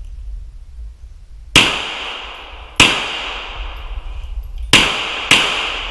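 Four pistol shots from a Glock chambered in .380, each followed by a long ringing echo; the first two come about a second apart, the last two in quick succession about half a second apart.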